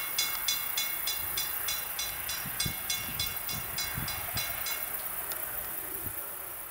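Railroad grade-crossing bell ringing in quick even strikes, about three a second, stopping about five seconds in, over the low rumble and a few low thuds of the passing train.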